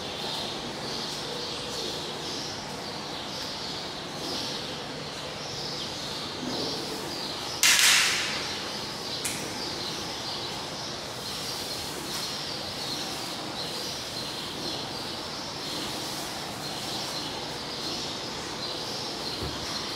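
Outdoor ambience with birds chirping steadily. About eight seconds in comes one sudden loud rushing hiss that fades within half a second, and a sharp click follows about a second and a half later.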